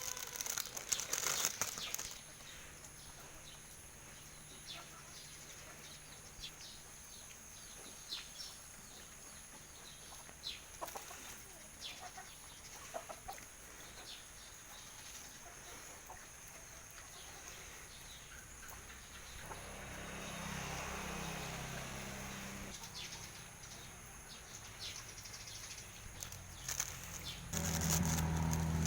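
Chickens eating, with wings flapping and scattered short pecking taps; a loud noisy flurry at the start. A steady low hum comes in near the end.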